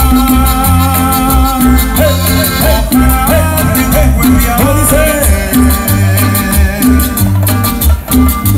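Cumbia song played loud over a DJ sound system: a repeating bass line under a melody, with steady percussion strokes.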